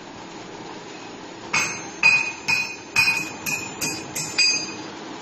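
Fabric roll slitting machine running with a steady hum, and about a second and a half in, a run of eight sharp, ringing metallic clicks, roughly two a second, that stops near the end.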